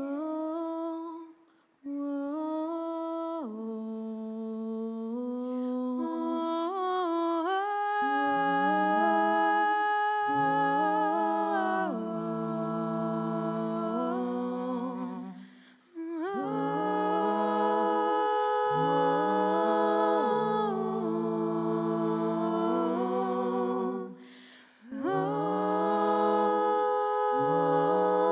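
Several voices humming a slow, wordless melody in harmony, unaccompanied, in long held phrases with brief pauses for breath about two, sixteen and twenty-four seconds in.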